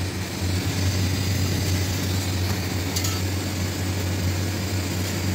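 Steady low hum with an even rushing hiss in a kitchen with gas burners lit. There is one faint click about three seconds in.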